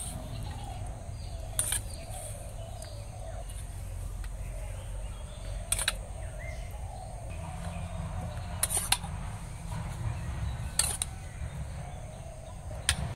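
A steel spoon knocking and scraping against a steel bowl about five times while a thick leafy paste is scooped out, over a steady low background rumble.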